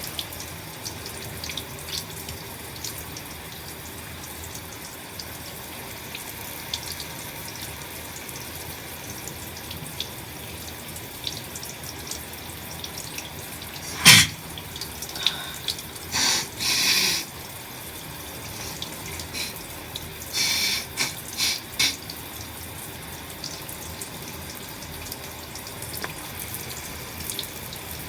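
Shower water running steadily, with one sharp, loud sneeze about halfway through from a person with a congested head cold. Shortly after come several shorter noisy bursts of nose blowing, first two and then a quick run of four.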